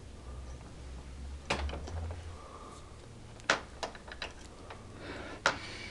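A few sharp metallic clicks from a torque wrench and AR-15 barrel-nut wrench strained against the barrel nut: two distinct clicks about a second and a half and three and a half seconds in, then a few fainter ticks. A low handling rumble runs under the first two seconds.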